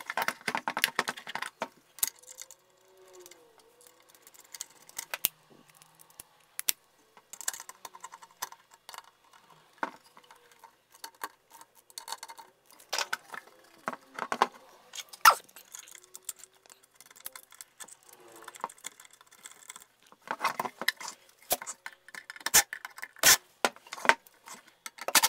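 Metal case of an Aracom PRX150-DAG attenuator being reassembled by hand: scattered clinks, clicks and knocks as the panels are handled and the screws driven in with a screwdriver. Dense clattering comes in the first second or so and again near the end.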